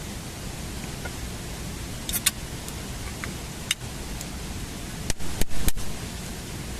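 Steady rushing noise with a few sharp clicks, and a quick cluster of louder knocks about five seconds in.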